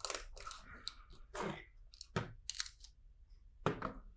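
Plastic LEGO pieces being handled and pressed together: a string of short clicks and crackly rustles.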